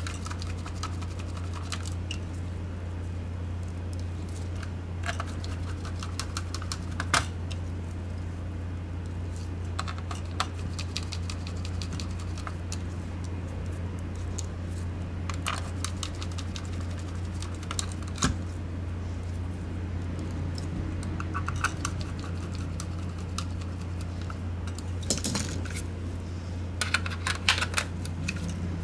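Small scattered clicks and ticks of a precision screwdriver and the plastic shell of a Logitech G604 mouse as its screws are driven back in and the mouse is handled, with a quick cluster of clicks near the end, over a steady low hum.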